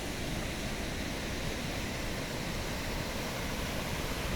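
Steady rushing of a nearby waterfall, an even, unbroken noise.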